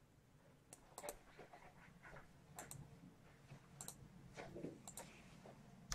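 Near silence with a few faint, scattered clicks of a computer mouse and keyboard being used.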